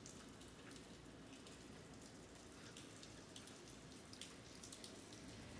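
Faint light rain falling on pavement: a steady soft hiss with scattered single drop taps.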